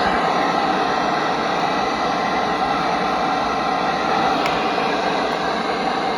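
Steady hiss of radio static from a broadcast receiver, with no speech.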